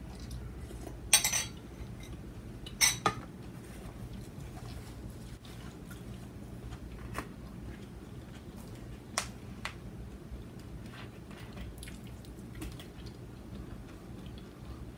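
Metal spoon clinking against a ceramic bowl, in a quick cluster about a second in and twice more near three seconds, then a few lighter clicks and knocks over a steady low hum.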